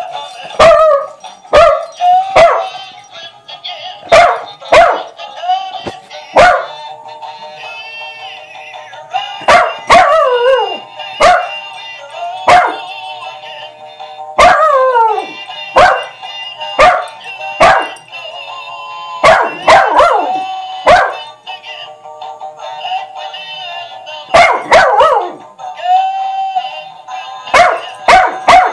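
A Jack Russell–dachshund mix dog barking repeatedly, in single barks and quick runs, at an animated dancing Christmas toy dog, over the toy's synthesized song.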